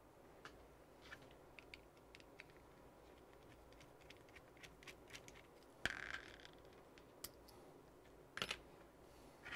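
Faint clicks and light taps of small hand tools and hardware being handled, with a louder clatter about six seconds in and another about eight and a half seconds in.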